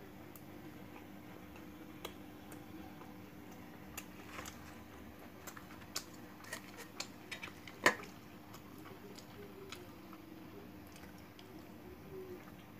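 Scattered small clicks and taps of fingers tearing roti and picking up egg bhurji against steel plates, the sharpest tap about eight seconds in, over a faint steady hum.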